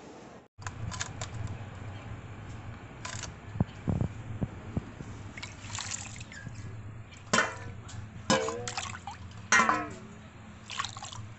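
Water poured from a steel bowl over a pan of freshly caught small shrimp, splashing and trickling. Three short vocal sounds in the second half are louder than the water.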